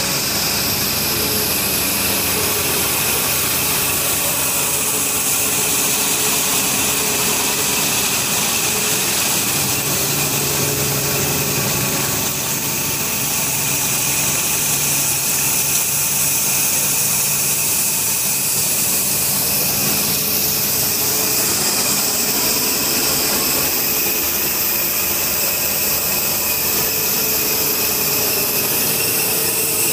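Small cotton-ginning machine running steadily, separating lint from seed: a constant loud mechanical noise with a steady high whine and hiss.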